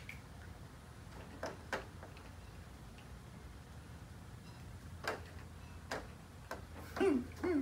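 A handful of sharp, separate clicks and taps of small die-cast toy monster trucks being handled and set on a plastic Hot Wheels track, over a low steady hum. A voice briefly calls out near the end.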